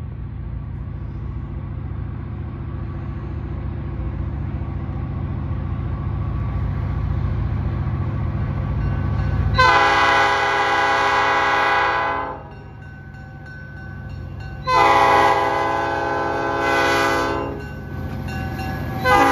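Diesel locomotive approaching with its engine working, a steady low rumble growing louder, then its air horn sounding two long blasts of several notes at once, about ten and fifteen seconds in, with a third blast starting at the very end.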